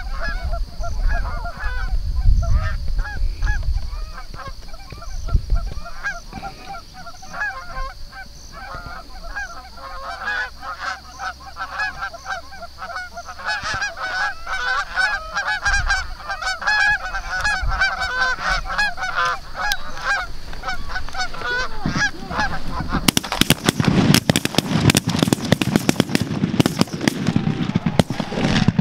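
A flock of Canada geese honking and clucking as it comes in, many short calls overlapping. About five seconds from the end a rapid volley of many shotgun blasts breaks out as the birds are shot.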